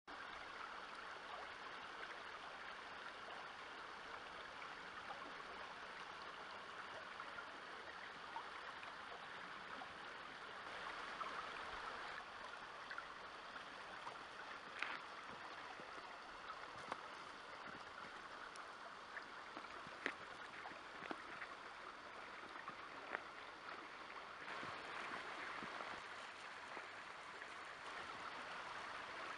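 A small river running past thin shore ice and slush, a steady faint rush of flowing water. A few sharp little clicks stand out in the second half.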